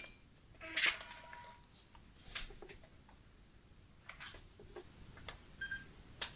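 Sony Mavica MVC-FD71 floppy-disk digital camera being switched on and handled: a few small clicks of buttons and casing, then a short electronic beep near the end.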